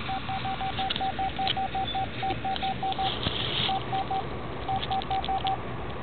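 Mobile phone keypad beeps: a string of short beeps, all at one pitch, about five a second, in bursts with brief pauses as keys are pressed one after another.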